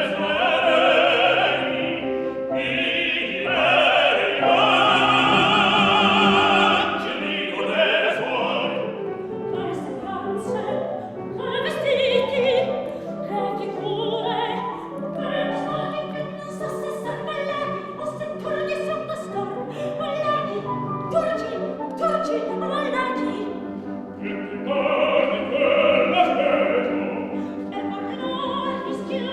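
Operatic singing in Italian with accompaniment. A high voice holds notes with wide vibrato in the first several seconds, then the singing turns quicker and more syllabic through the rest.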